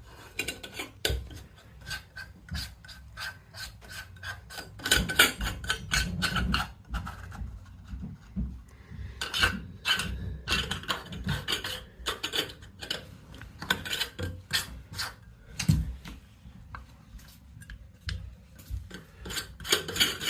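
Hands working on shower valve fittings and pipework: a run of short scrapes, rubs and metallic clicks at irregular intervals.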